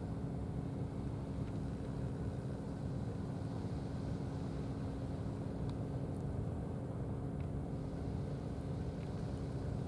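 Steady low rumble with a constant low hum, no distinct events.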